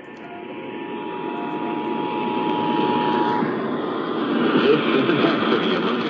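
Emergency Alert System attention signal, two steady tones sounding together (853 and 960 Hz), received on AM radio through a hiss of static; the tones cut off suddenly about three and a half seconds in, while the static grows louder.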